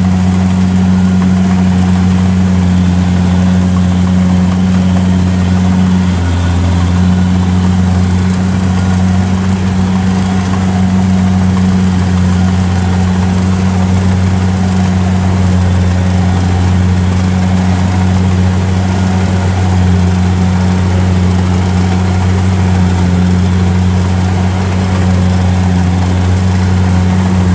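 Kubota DC70 combine harvester's diesel engine running steadily while the machine cuts rice in a muddy field.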